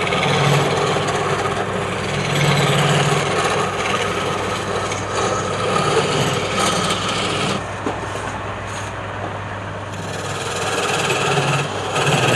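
Wood lathe running with a turning tool cutting into the spinning wood: a steady motor hum under a scraping, rasping cut. The cut eases off for a couple of seconds past the middle, then bites again.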